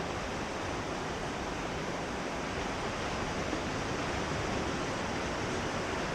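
Ocean surf: a steady, even wash of waves.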